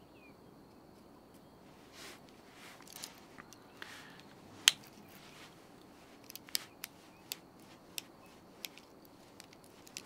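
Light clicks and small snaps from a Victorinox Huntsman pocket knife being handled, with one sharper click about halfway through and a run of quicker, lighter clicks in the second half, between soft rubbing sounds.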